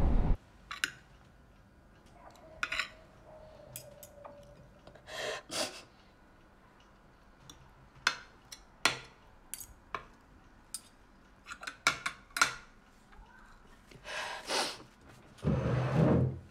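Knife and fork clinking and scraping on a ceramic dinner plate: scattered single clicks, with a louder scrape and shuffle near the end. A train's interior rumble cuts off just as it begins.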